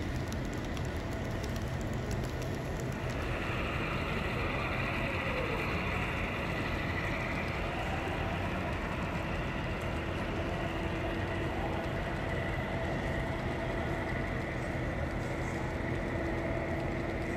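HO scale model freight train running on a layout's track, a steady rolling rumble with a faint steady hum.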